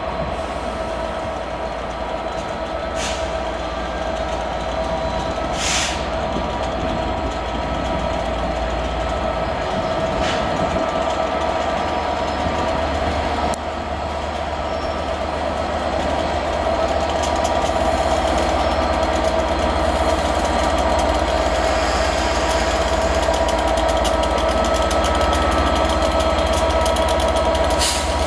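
Class 67 diesel locomotive's two-stroke V12 engine running as it draws slowly closer, a steady rumble with a sustained whine that grows gradually louder. Two brief hisses sound a few seconds in.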